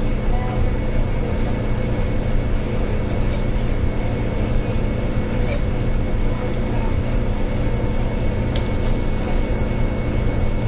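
Steady hum of a motor or appliance with several fixed tones, unchanging throughout, with a few faint sharp clicks over it.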